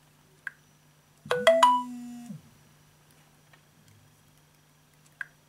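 Smartphone loudspeaker playing a short notification chime of quickly rising notes that ring on for about a second. A short tick sounds shortly before it and again near the end.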